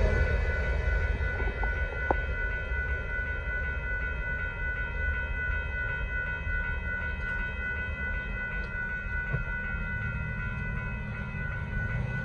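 Railroad crossing warning bell ringing steadily while the low rumble of the departing Union Pacific grain train fades over the first couple of seconds.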